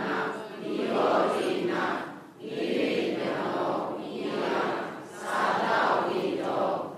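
A man's voice reading aloud from a book, in phrases of one to two seconds with short breaks between them.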